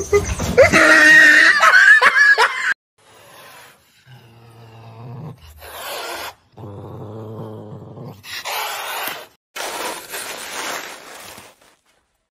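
A loud, wavering voice-like sound stops suddenly near the three-second mark. A caracal then snarls in a string of short bursts, alternating hissing with low growling, until it stops about a second before the end.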